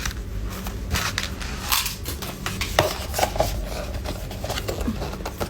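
Gift packaging being crumpled and torn open by hand, in irregular crackles.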